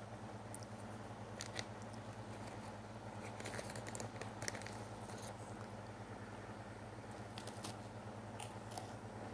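Small wet clicks and crackles from two dogs' mouths as they nose and lick at each other's muzzles, coming in a few short clusters over a steady low hum.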